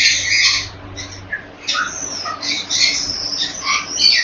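Quaker parrot (monk parakeet) squawking in harsh, raspy calls: a burst at the start, a short lull about a second in, then almost unbroken squawking chatter.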